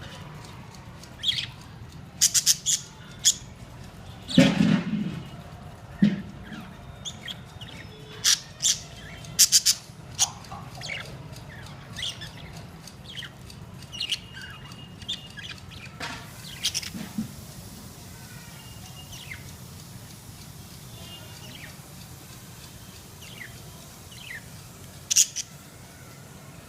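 Pet budgerigars chirping and squawking in short, sharp calls scattered irregularly, busiest in the first half, over a steady low hum.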